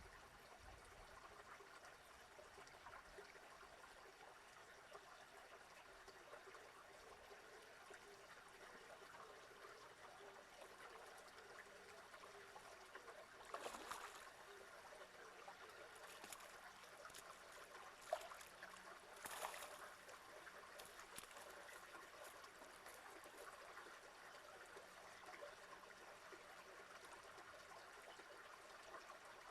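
Faint trickling water at near-silent level, with three brief splash-like knocks about halfway through and soon after.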